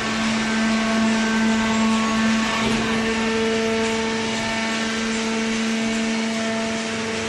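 Industrial cardboard shredder and baler running: a steady machine hum with a constant rushing noise over it.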